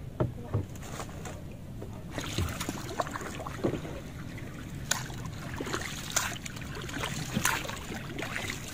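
A small wooden outrigger canoe being paddled: water swishing and dripping with the strokes, and a sharp knock about every second and a quarter.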